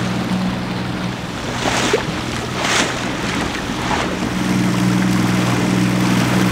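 Outboard motor running at a steady hum as the boat moves across choppy water, with water rushing along the hull and a couple of short splashes about two and three seconds in.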